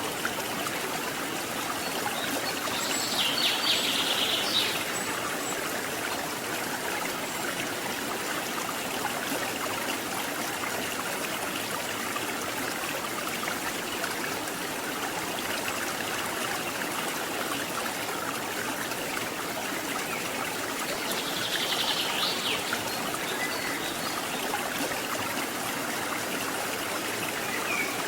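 Waterfall and river water rushing steadily, in heavy rainy-season flow. A bird's rapid high trill sounds twice, a few seconds in and again past the middle.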